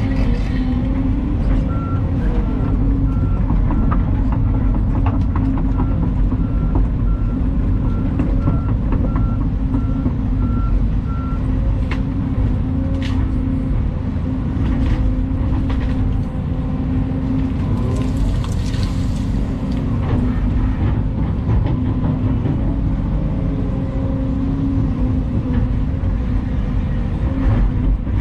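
Large Volvo EC220 excavator running steadily under work, its diesel engine and hydraulics a constant drone. Early on its travel alarm beeps evenly for about ten seconds. Scattered knocks and cracks of machine work come through the middle.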